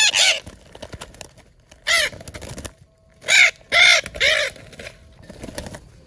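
Parrots giving harsh squawking calls, about six in all, with three in quick succession around the middle.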